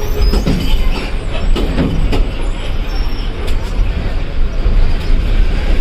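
Cabin sound of a moving KSRTC bus: the engine runs with a heavy low rumble under steady road noise, with a few short knocks and rattles.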